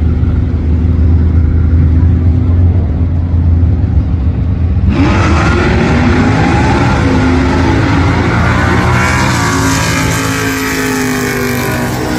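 Muscle car engines rumbling at the starting line of a drag strip. About five seconds in, the sound changes abruptly to engines at full throttle, with several pitches rising and stepping as the cars accelerate through the gears.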